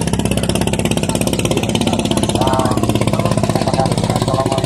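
Boat engine running steadily close by, a fast, even beat with no change in speed.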